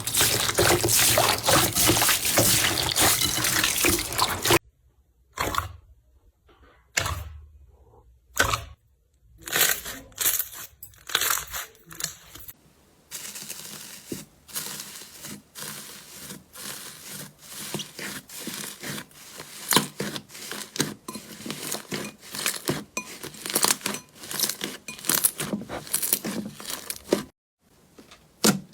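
Slime being squished and worked by hand, making wet squelches and many small pops. It is dense for the first few seconds, then comes in scattered squishes, then in a long run of quick pops.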